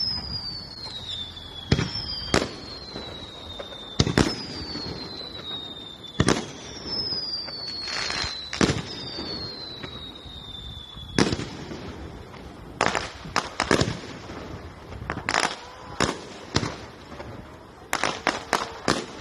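Aerial fireworks shells going off: sharp bangs every second or two, several with a whistle falling in pitch over a second or so, and a quick run of cracking reports near the end.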